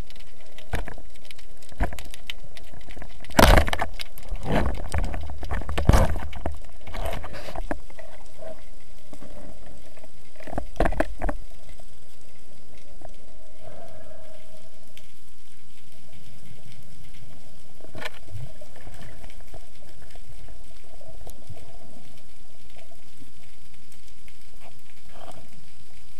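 Underwater sound picked up through an action camera's waterproof housing mounted on a speargun: a steady hiss with a run of sharp knocks and clicks through the first dozen seconds, loudest about three and a half and six seconds in, then only an odd knock.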